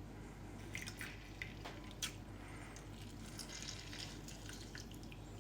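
Faint, irregular drips and small wet clicks of lemon juice being squeezed into a cup of hot ginger water.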